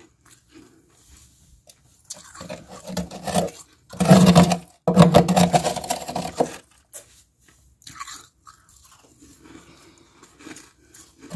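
Crunching of thin, flaky freezer frost, close to the microphone. The crackling builds about two seconds in, is loudest for a couple of seconds from about four seconds in with a brief break, then thins to scattered soft crackles.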